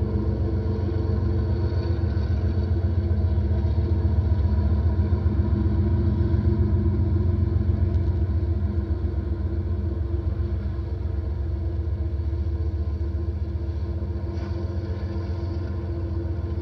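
BNSF diesel locomotive running under load as it passes, a steady low engine rumble that grows louder toward the middle and then eases off as it moves away.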